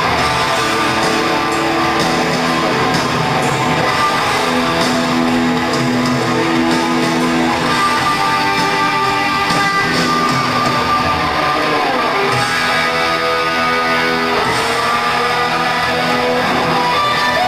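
Hard rock band playing live, electric guitars over bass and drums, with the lead guitar holding and bending notes.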